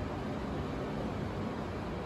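Steady, even rushing noise of an air conditioner blowing air, its fan set to high speed.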